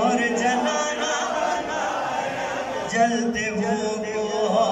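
A man chanting an Urdu manqabat (devotional poem) into a microphone, holding long notes, with a new phrase starting about three seconds in.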